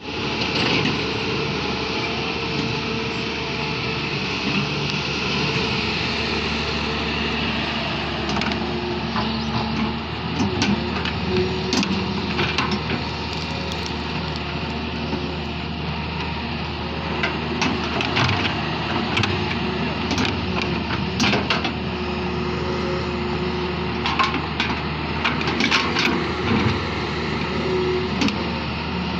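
2007 Doosan DX140W wheeled excavator's diesel engine running steadily under working load as the bucket digs soil. Sharp knocks and clatters come and go through the middle and again near the end.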